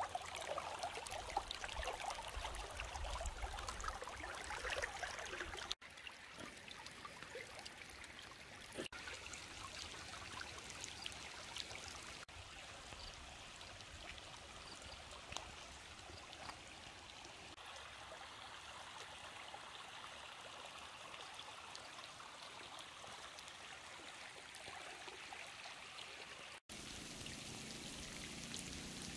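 Shallow, muddy flash-flood runoff flowing over a dirt track: a steady rush of running water. It is louder for the first six seconds, then quieter and even.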